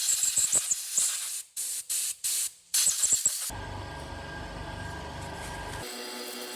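Aerosol carburetor cleaner sprayed in a string of short, loud hissing bursts into a small-engine carburetor. About three and a half seconds in, the spraying stops and a steadier hum with several steady tones takes over.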